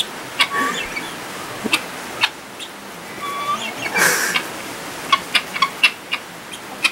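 Guinea fowl calling: short, sharp clipped calls at irregular intervals, with a couple of brief whistled notes and a louder harsh, noisy burst about four seconds in.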